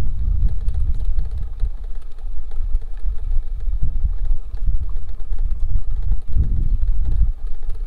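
Wind buffeting the microphone: a loud, uneven low rumble that rises and falls with the gusts.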